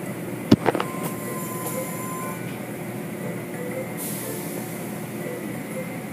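Steady mechanical running noise with a quick cluster of sharp knocks about half a second in, and a high hiss that starts about four seconds in.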